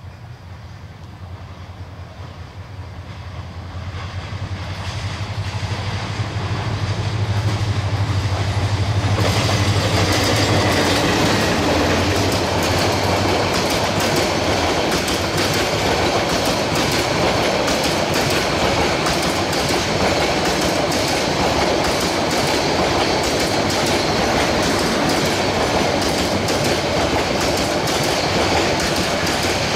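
Diesel locomotive and passenger train passing close by. The locomotive's engine runs low and grows louder over the first several seconds as it nears. From about nine seconds in, the coaches' wheels on the rails make a steady, loud rush and clatter as the rake rolls past.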